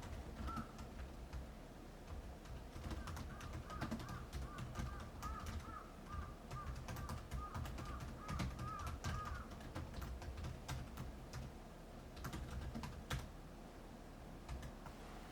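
Rapid, irregular sharp clicks and taps, with a run of short, soft bird call notes in the middle, over a low wind rumble.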